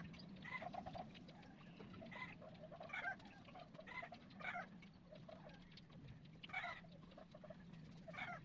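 Faint, short animal calls repeated at irregular intervals, several within a few seconds, over a steady low hum.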